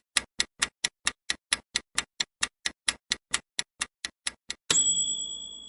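Countdown-timer sound effect ticking fast and evenly, about four ticks a second. Near the end it gives way to a single bell-like ding that rings out and fades, marking that time is up.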